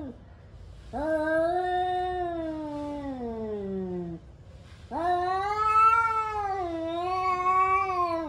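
Two angry male cats in a pre-fight standoff, caterwauling with long, drawn-out threat yowls. One yowl slides down into a low growl near its end, and after a short pause a second, wavering yowl follows.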